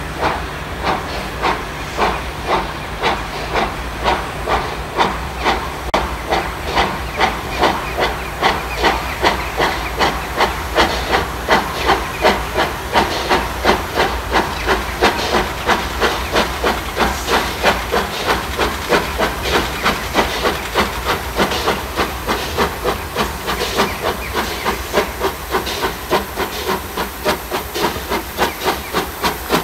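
Romanian steam locomotive 131 060 working hard under load, its exhaust beating out loud, regular chuffs. The beats quicken from about one and a half to about three a second as the train gathers speed.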